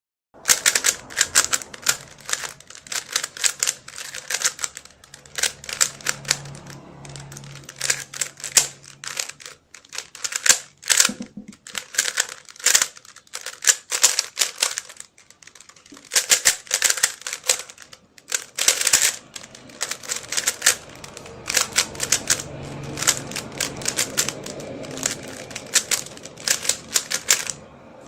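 Rubik's cube being turned rapidly: dense runs of plastic clicking and clacking as the layers are twisted, broken by brief pauses.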